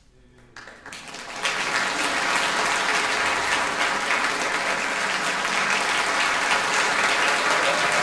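Audience applause starting with a few scattered claps, then swelling within about a second and a half into full, steady applause.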